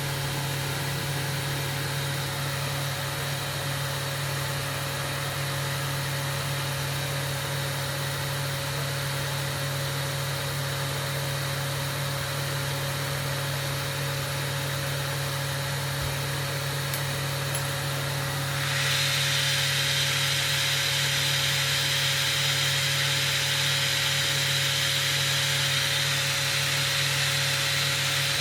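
Steady low hum with an even hiss over it, of the kind a glassblower's gas burner and workshop equipment make; about two-thirds of the way in the hiss suddenly gets louder and higher and stays so.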